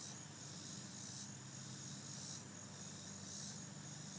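Insects chirping in a steady chorus, with a high buzzing that swells and fades about once a second.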